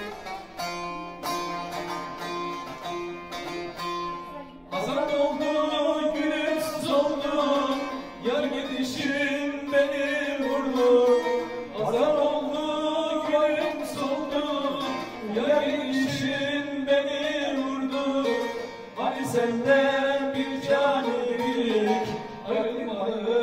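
A bağlama (long-necked Turkish saz) being strummed and plucked alone, then about five seconds in a man starts singing a Turkish folk song in long, held, bending notes with the bağlama accompanying him.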